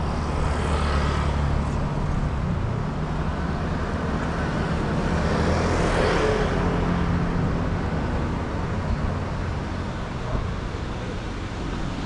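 Street traffic: a steady low engine rumble with vehicles passing by, the loudest pass swelling about six seconds in.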